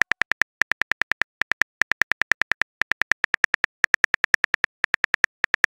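Smartphone keyboard key-click sound effect from a texting-story app, typing out a message: rapid runs of identical clicks, about ten a second, broken by short pauses.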